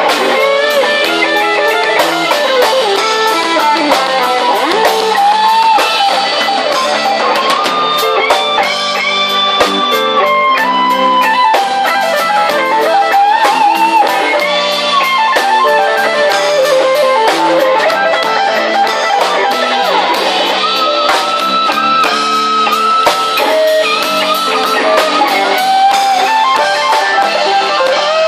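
Live band playing a slow blues ballad: an electric guitar plays a lead line with bent and sliding notes over steady drums, with no singing.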